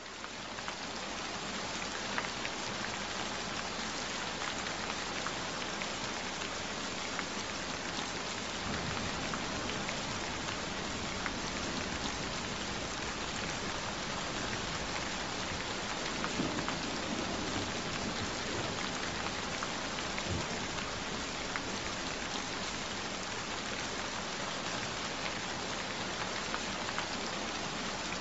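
Steady rain falling on a surface, a dense even hiss dotted with small drop clicks. It swells in over the first two seconds, then holds level.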